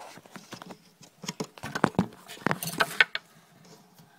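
Irregular clicks, taps and scratchy rustles of a hand reaching into a glass reptile tank and moving among its decor to bring out a leopard gecko, with handling noise from the phone held close. The sounds are busiest and loudest in the middle, then die down near the end.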